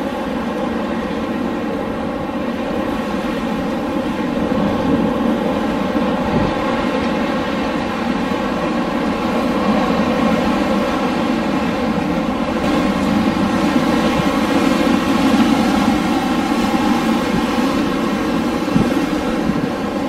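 Winter wind blowing steadily: a low, continuous rush that swells a little in the second half.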